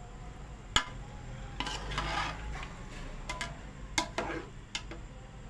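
A slotted spoon stirring rice and chickpeas in watery pulao in a large metal pot: scraping stirring strokes, with sharp knocks of the spoon against the pot about a second in and twice around four seconds in.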